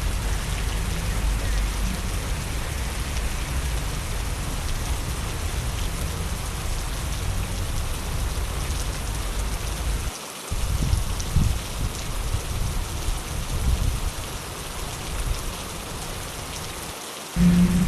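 Steady rain falling on a wet city street, over a low rumble that cuts out briefly twice.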